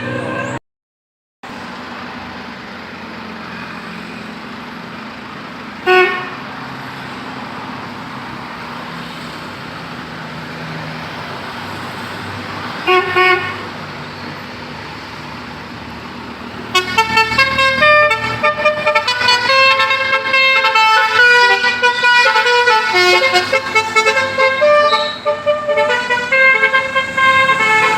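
Traffic noise with a short horn toot about six seconds in and a double toot about thirteen seconds in. Then a Basuri telolet multi-tone car horn plays a fast tune of changing notes for about ten seconds.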